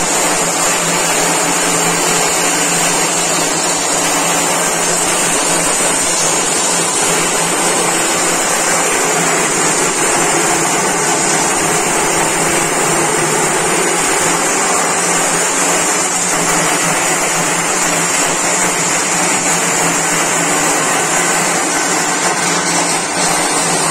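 Electric corn thresher running, its motor and threshing drum making a loud steady noise, with shelled maize kernels spraying out of the outlet.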